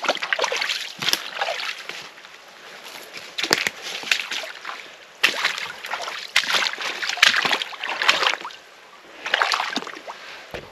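Footsteps in rubber boots sloshing and squelching through shallow water and mud, irregular steps with a short quieter pause about two seconds in.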